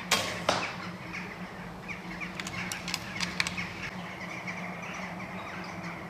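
Air rifle shooting: two sharp cracks about half a second apart right at the start, then a scatter of light clicks a couple of seconds later, over a steady low hum.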